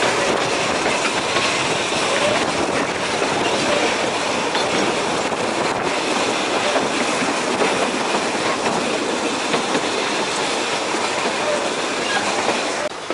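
Puffing Billy narrow-gauge steam train running along the track, heard from the carriages: a steady clatter of wheels on rails. The level drops suddenly just before the end.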